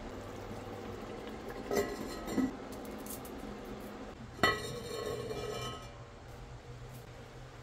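Enamelled cast-iron Dutch oven and its lid clinking: two light clinks, then a sharper clink about four and a half seconds in that rings on for about a second, as the lid is handled on the pot.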